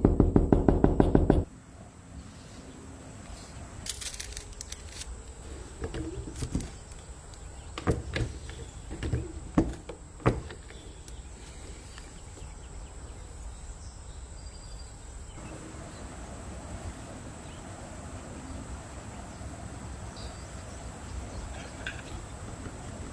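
Scattered light taps and knocks of hand tools and materials being worked on a bench, most of them in a cluster over a few seconds, over a low steady hiss. Fast-pulsing music cuts off abruptly at the start.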